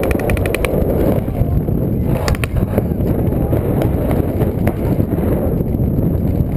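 Paintball markers firing: a rapid string of shots at the start and a short burst about two seconds in, with scattered single shots, over a steady low rumble of wind and handling noise on the camera's microphone.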